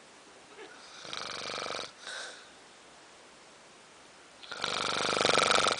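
Snoring: a rattling snore about a second in, then a louder, longer one near the end.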